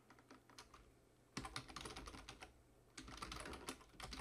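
Typing on a computer keyboard: a few scattered key taps, then two quick runs of rapid keystrokes, the first about a second and a half in and the second from about three seconds.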